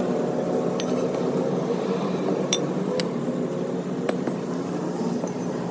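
A steady low mechanical hum with four sharp metallic clinks spaced through it.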